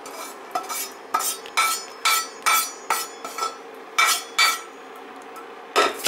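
Perforated steel spatula knocking and scraping against a metal pan while tapping roasted flour out of it: about a dozen sharp, ringing knocks, roughly two a second, with a short pause near the end.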